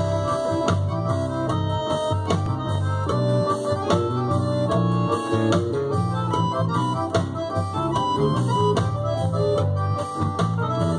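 A sampled electric bass line from the Ilya Efimov Modern Bass virtual instrument, played from a keyboard. The low notes change quickly, over sustained organ-like chords.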